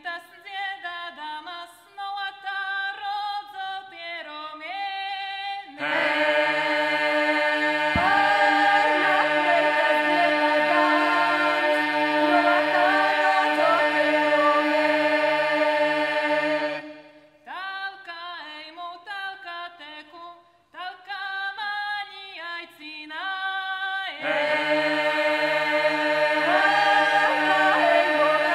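A cappella vocal ensemble of women's and men's voices singing folk-style polyphony. Short phrases from a few voices alternate with the whole group holding loud, full chords over a low drone: the full group comes in about six seconds in, drops back to the phrases at about seventeen seconds, and comes in again near the end.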